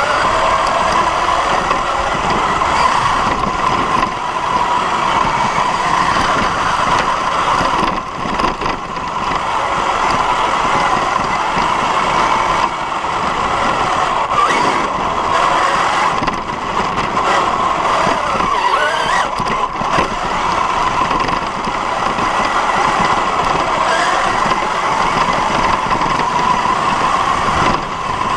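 RC car's motor whining as it drives, heard from a camera mounted on the car, with its pitch rising and falling with speed over a steady rough rattle of the chassis on the dirt.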